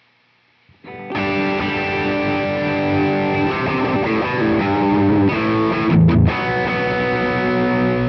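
PRS SE Custom 22 semi-hollow electric guitar played through the Sonicake Matribox II Pro's Master Dist model, a Marshall Shredmaster distortion emulation, into a Celestion cabinet impulse response, with heavily distorted notes and chords. The playing comes in about a second in, with a short, loud low hit just after six seconds.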